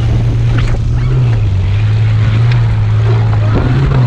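Vehicle engine running steadily under load while driving over rough dirt, its low drone rising and falling slightly. Constant rumble and wind noise run under it, with scattered small knocks and rattles.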